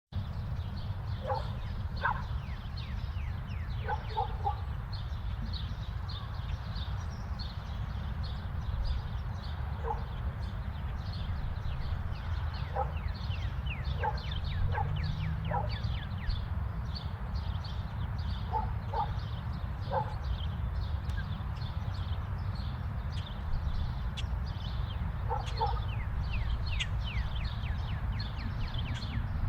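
Suburban neighbourhood ambience: many small birds chirping all through, a dog barking now and then, often twice in quick succession, over a steady low rumble of distant traffic.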